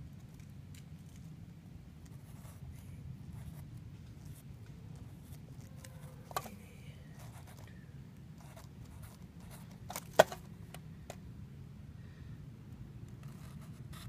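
Sharpie marker writing on a paper target card: faint scratchy strokes and small ticks, with two sharper clicks, the louder one about ten seconds in.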